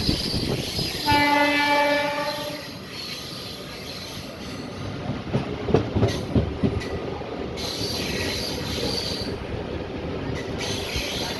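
A train running on the track, with its horn sounding once for about a second and a half near the start. Later come clicking knocks of wheels over rail joints and a high squeal of wheels on the rails.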